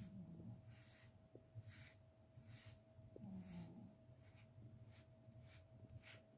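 Faint, soft scratchy strokes of a grooming brush drawn repeatedly through a cat's fur, about one stroke every two-thirds of a second, brushing out loose shed hair.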